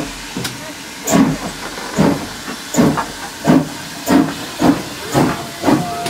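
GWR 0-6-0 pannier tank steam locomotive No. 1369 starting away with its train: exhaust chuffs begin about a second apart and quicken steadily to about two a second, over a steady hiss of steam.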